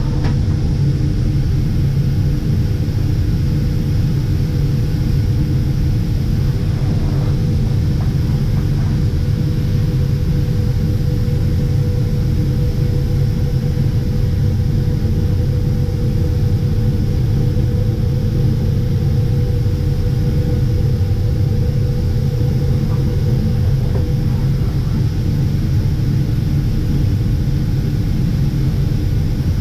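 Chiron FZ 08 FX Magnum vertical machining centre running: a steady low mechanical hum with a constant whine.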